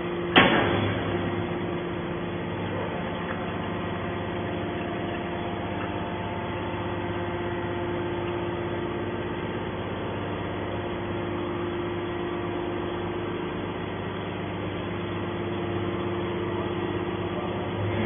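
Hydraulic scrap metal baler running with a steady hum from its hydraulic power unit while the ejection ram pushes the compressed scrap bale out of the press chamber. A single sharp bang comes about half a second in.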